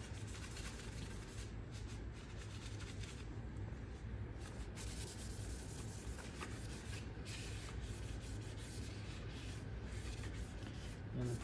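Paper towel rubbing over the metal parts of a disassembled Winchester SX4 shotgun, wiping off cleaner and grime in soft, uneven scrubbing strokes.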